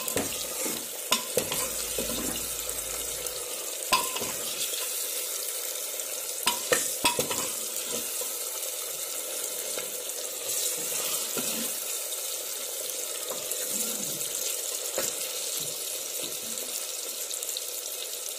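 Onions, green chillies and tomatoes sizzling steadily in hot oil in an aluminium pressure cooker, stirred with a steel ladle that clinks against the pot a few times.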